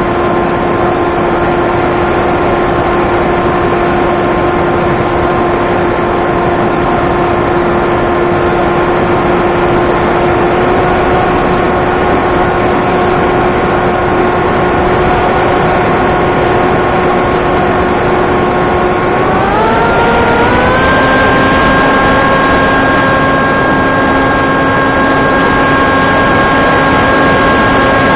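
Electric motor and propeller of a radio-controlled model plane, heard through its onboard camera: a loud, steady whine over a constant hiss. About two-thirds of the way through, the pitch steps up quickly as the throttle opens, then holds at the higher pitch.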